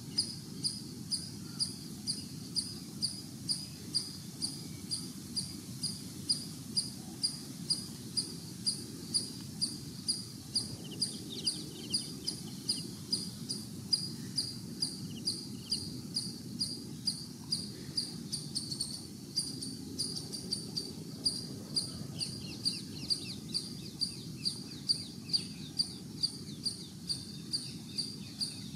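A cricket chirping steadily, about two to three short, high chirps a second, over a low hum of outdoor background noise.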